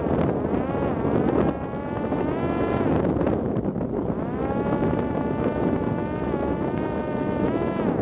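Parrot Disco fixed-wing drone's electric pusher motor and propeller whining in flight, with wind noise on the microphone. The whine rises in pitch a second or two in, holds steady through the second half, and drops just before the end.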